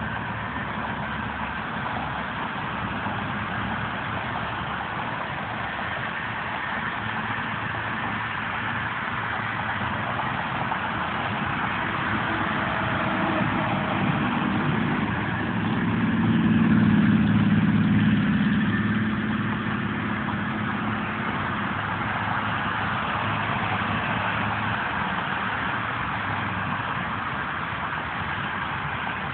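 Road traffic passing steadily, mostly tyre and engine noise. About halfway through, a tractor-trailer's engine swells louder as it passes close, then fades.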